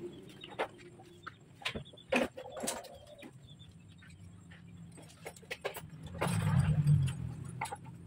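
Wood and hand tools being handled at a wooden bench frame: scattered light knocks and clicks, the sharpest about two seconds in and a quick run of them around five seconds. A louder low rumble swells about six seconds in and fades within a second.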